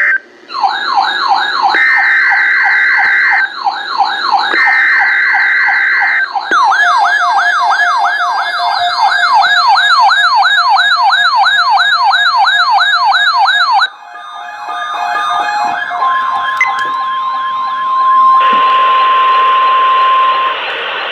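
Emergency Alert System tones: screeching SAME header data bursts sound twice, over an electronic siren that warbles up and down, speeding to about three sweeps a second. The siren cuts off about 14 s in. A steady NOAA Weather Radio warning alert tone follows, with static hiss coming in near the end.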